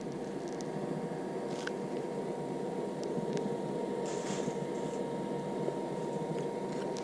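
Steady mechanical hum with a faint high tone running through it, and a few light clicks.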